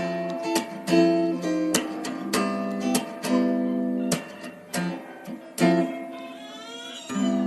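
Background music: strummed acoustic guitar chords, with a sliding note near the end.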